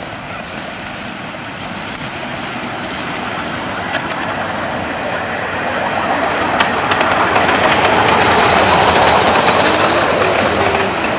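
A 7¼-inch gauge miniature steam locomotive hauling passenger riding cars runs past close by, its steam exhaust and running gear growing steadily louder as it approaches, loudest about eight to ten seconds in, with a couple of sharp clicks from the wheels on the track.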